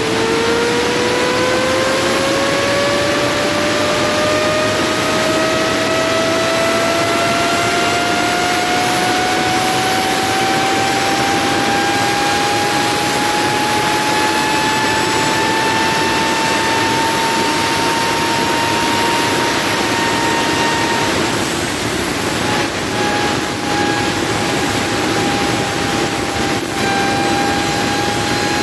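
Electric motor driving a 3D-printed wheel on test, a steady whine that rises slowly in pitch for about twenty seconds over a constant rushing noise. After that it wavers, drops out briefly and settles slightly lower.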